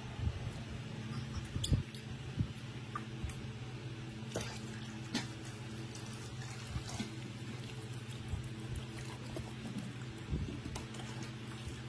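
Soapy water splashing and dripping in a plastic basin as a hand scoops it over a baby monkey and scrubs it, in scattered small splashes over a steady low hum.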